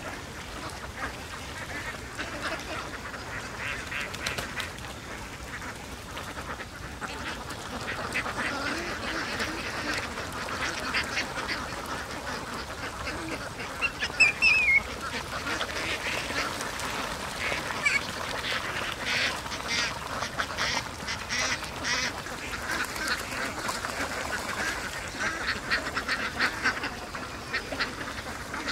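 A large flock of domestic ducks quacking and chattering continuously, many birds calling over one another. A sharp, louder sound stands out about halfway through.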